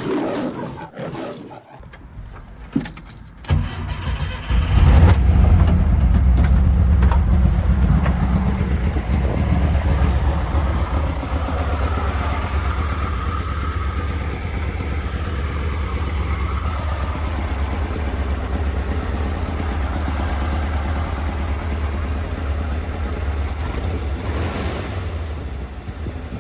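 Carbureted Volkswagen car engine: a few clicks and knocks, then the engine catches about four seconds in and keeps running steadily. The owner suspects dirt in the carburetors.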